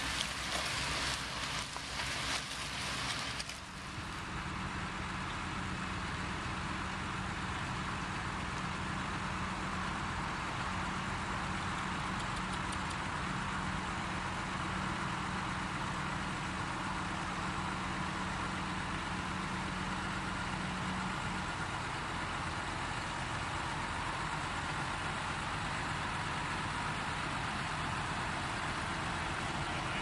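A vehicle engine idling at a steady pitch under a steady outdoor rush, the hum stopping about 21 seconds in. The first few seconds hold a rougher, gusty noise before the sound changes abruptly.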